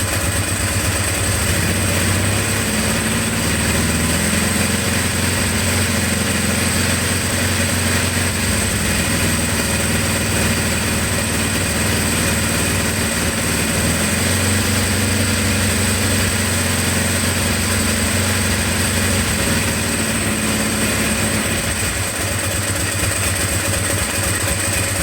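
Ducati 749's V-twin engine idling steadily, with a faint high whine above it. It cuts off abruptly near the end.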